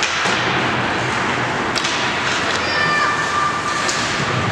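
Ice hockey game sound in a rink: a steady din of spectators' voices with a few sharp clacks of sticks and puck on the ice, and a sustained high-pitched tone from a little past halfway to the end.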